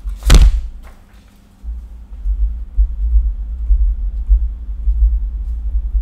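A short sharp noise about a third of a second in, then a loud, uneven low rumble with a faint steady hum underneath.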